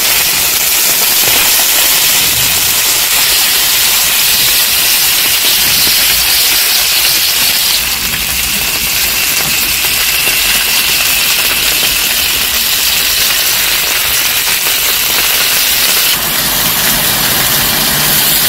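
Steak sizzling on a hot grill pan: a loud, steady hiss.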